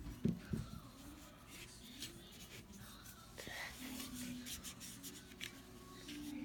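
Faint scratching and dabbing of small paintbrushes putting paint onto a terracotta Chia Pet figure, with a few light taps and clicks just after the start.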